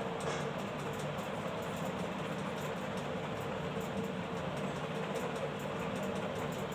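Steady mechanical hum with one constant mid-pitched tone, running evenly without a break.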